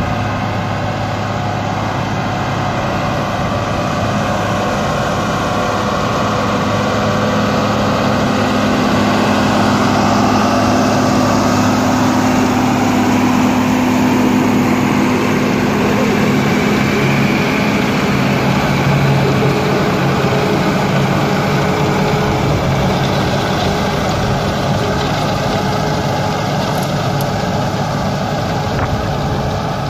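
John Deere tractor's diesel engine running steadily under load as it pulls a hay mower-conditioner cutting hay. It grows louder as the tractor passes close, from about a third of the way in to the middle, then eases off.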